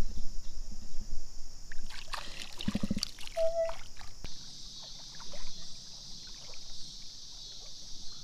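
Water splashing and sloshing in a shallow creek as a hand lets a sunfish go, with a short cluster of splashes about two to three seconds in.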